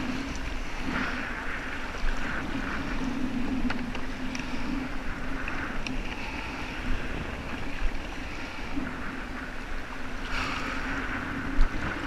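Choppy bay waves splashing and slapping against the hull of a Hobie kayak in rough water, in irregular surges, with wind buffeting the microphone.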